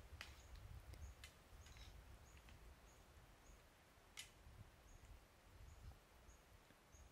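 Near silence with faint outdoor ambience: a small animal's short, high chirp repeating about twice a second, with a few faint clicks.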